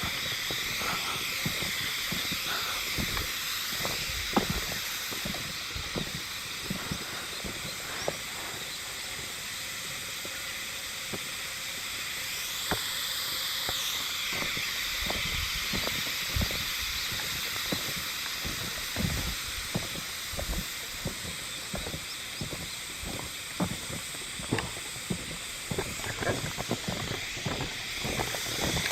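Hime-haruzemi cicadas (Euterpnosia chibensis) calling in chorus as a steady high buzzing hiss that swells and eases in slow waves. Short low knocks are scattered through it.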